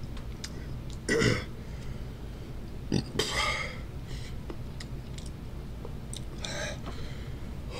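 A man making short breathy mouth sounds while eating a chocolate bar with a Carolina Reaper filling: a throaty burp-like sound about a second in, a hissing breath out about three seconds in and another near the end, with small wet mouth clicks between. These are reactions to the chili heat.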